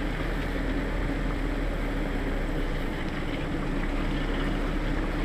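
Steady engine drone of four-wheel-drive vehicles crawling slowly up a rocky trail, picked up by a camera on the hood.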